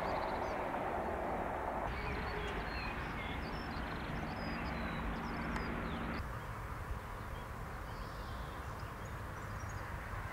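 Steady outdoor rumble and hiss with birds chirping, most between about two and six seconds in. The background changes abruptly twice, about two seconds in and again about six seconds in.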